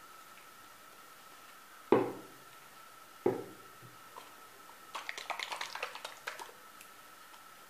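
Two sharp knocks, as of objects set down on a hard surface, followed about two seconds later by a quick run of light clicks and clatters, over a faint steady high whine.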